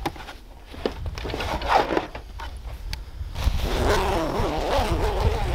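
A few scrapes and knocks, then from about three seconds in a zipper on a black fabric bag being pulled open in a rasp lasting about two seconds.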